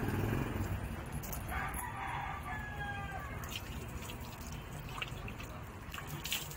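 A rooster crows once, about a second and a half in, over the splashing and dripping of water poured from a plastic dipper onto a dog's wet fur.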